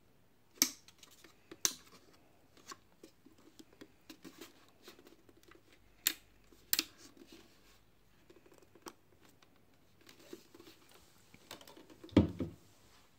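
Scattered sharp plastic clicks and taps as a phone-holder clamp is handled and fitted onto a DJI Phantom 3 Standard remote controller, with a dull thump about twelve seconds in.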